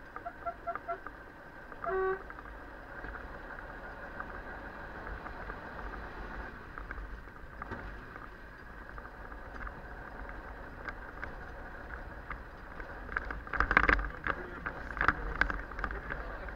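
Fire engine's cab while driving: steady engine and road noise. A quick run of short beeps sounds at the start, and a single short beep comes about two seconds in. Loud clattering knocks and rattles come near the end.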